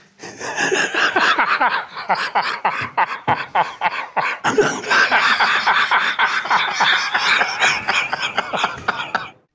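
Men laughing in a long fit of rapid, repeated laughs, with a brief break about four seconds in.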